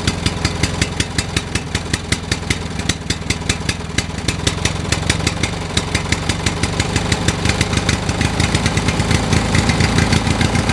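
Tractor engine running with a steady, rapid chugging knock that quickens and grows a little louder in the second half.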